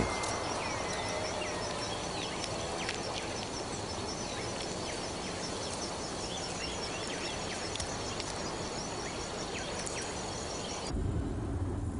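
Outdoor garden ambience: an insect chirping in a steady, fast high pulse over a soft hiss, with a few short bird chirps in the first second or so. About a second before the end the ambience changes to a low rumbling noise.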